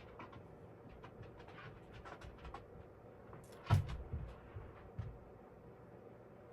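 Faint clicks and light taps of plastic cups and containers being handled while liquid silicone rubber is poured onto a scale, with a louder knock a little past halfway and two softer ones after it.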